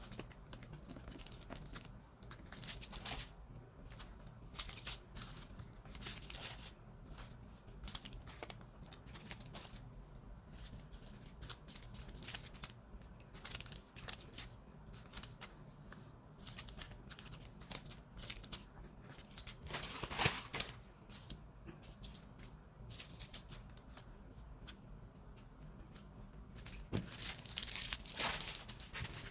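Small plastic bags of diamond-painting drills being handled and sorted, crinkling and rustling irregularly, with a couple of louder crinkles around two-thirds of the way through and near the end.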